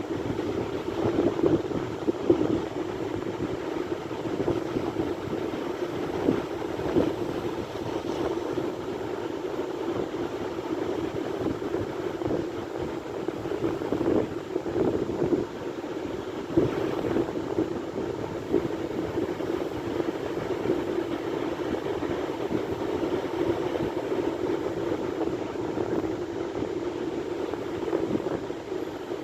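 Sea waves washing ashore as a steady rushing noise, with wind buffeting the microphone and a few brief louder gusts.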